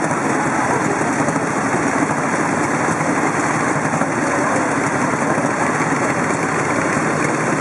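Several vintage motorcycle engines idling together, a steady, loud mix of exhaust beats with no revving.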